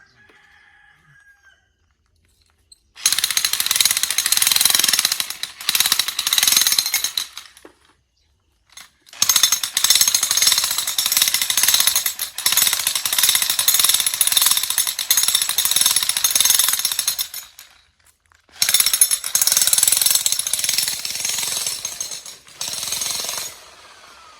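Jackhammer breaking rock, running in three long stretches of rapid hammering that start about three seconds in and stop briefly twice.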